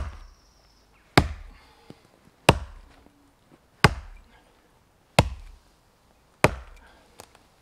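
A small Hultafors hunters axe chopping into a tree trunk: six sharp strikes about 1.3 s apart, each with a short thud. These are the last blows of the felling cut, finishing a tree that is nearly through.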